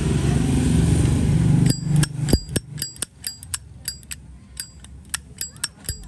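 A steady low rumble for the first second and a half, cut off sharply. Then a Zippo lighter's hinged lid is flicked open and snapped shut again and again, several metallic clicks a second, each with a short bright ring.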